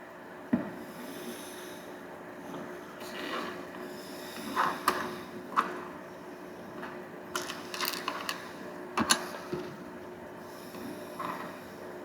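Hands opening a LEGO minifigure box and handling its packaging and small plastic parts: scattered clicks, taps and short rustles over a steady background hum.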